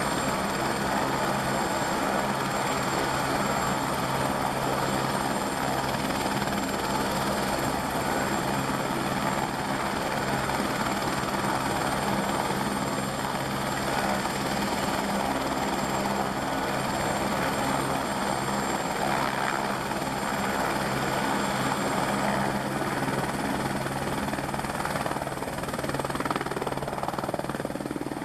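Airbus AS350 B3e (H125) helicopter running steadily: a high turbine whine over the low, even drone of the rotor. The whine edges up slightly in pitch near the end.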